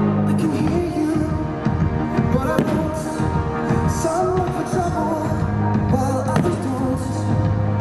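A sung anime song plays over a stadium sound system. Two sharp firework bangs cut through it, about two and a half seconds in and again about six and a half seconds in.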